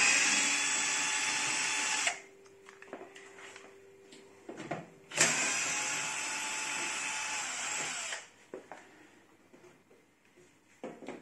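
Power drill-driver running in two bursts, about two and three seconds long, backing screws out of the oven's back panel, with small clicks and taps between.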